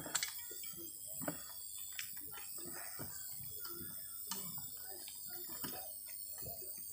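Quiet ambience with a steady hiss and scattered faint clicks and knocks, the sharpest just after the start, and a few soft murmurs.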